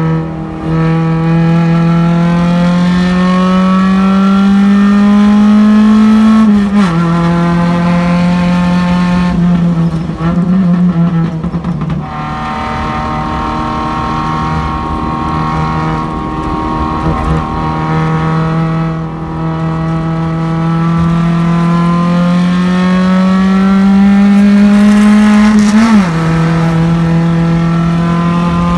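Race car engine heard from inside the car under hard acceleration. The engine note climbs steadily and drops sharply as the driver shifts up, about six and a half seconds in and again near the end. Around ten to twelve seconds in the note turns ragged and unsteady, then holds steady before climbing again.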